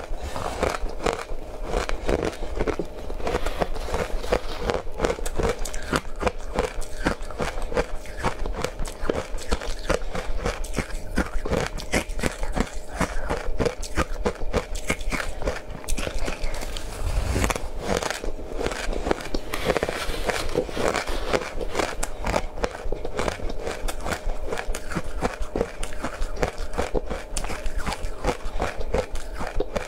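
Steady, rapid crunching and chewing of powdery frozen ice dusted with matcha powder, picked up close to the mouth.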